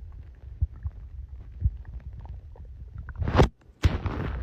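A man's stomach growling after eating a whole pizza: a low, steady rumble with a few faint clicks. About three seconds in there is a louder burst of noise, then a short gap and a sharp click.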